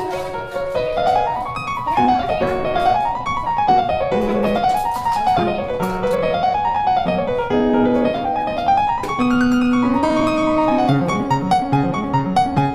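Background piano music: quick runs of notes rising and falling in repeated waves over lower held notes.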